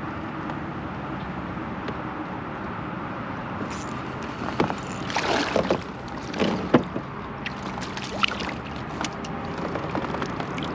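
Steady distant road-traffic noise, with a cluster of splashing and knocking sounds from a kayak on the water between about four and seven seconds in, and a few sharp clicks after.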